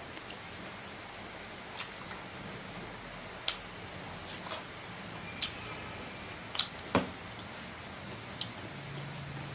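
Close-up eating sounds of a person chewing rice and fried pork belly with the lips and mouth: about six sharp wet smacks and clicks, one every second or two, over a steady background hiss.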